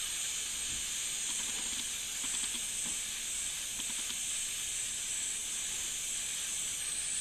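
Gas-powered hot air gun hissing steadily as it blows hot air onto a small capacitor on a circuit board.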